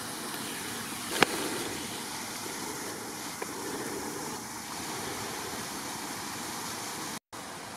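Creek water flowing after a rainstorm, a steady rushing hiss, with one sharp click about a second in.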